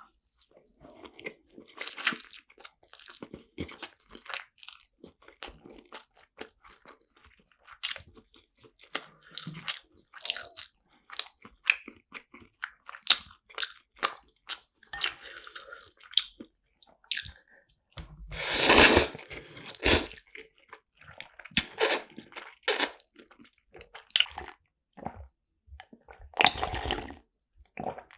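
Close-miked chewing and mouth sounds of a person eating sushi: many short wet smacks and crunches, with a louder, longer noisy stretch about two-thirds of the way through.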